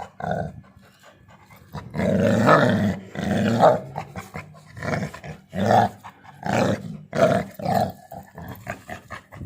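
Dog growling during rough play: one long growl, then a run of short growls about one a second.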